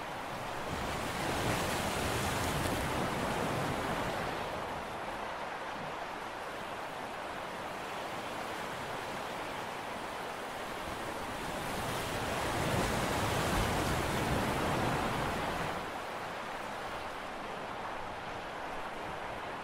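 Sea waves washing against the shore, a steady rush that swells twice, once near the start and again about twelve seconds in.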